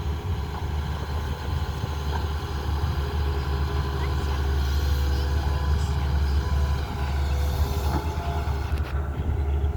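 Tata Hitachi excavator's diesel engine running steadily as it works.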